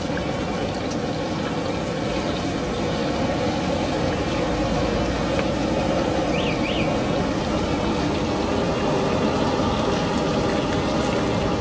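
Skewered food deep-frying in a wok of hot oil: a steady bubbling sizzle with a low rumble underneath.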